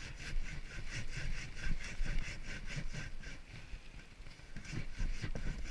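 Coarse sandpaper scrubbed back and forth over a log's weathered surface, a rhythmic rasp of about four strokes a second that eases briefly in the middle and picks up again near the end.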